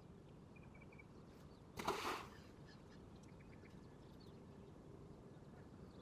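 A ball of groundbait splashing into a calm river once, about two seconds in. A few faint bird chirps come just before it, over a quiet outdoor background.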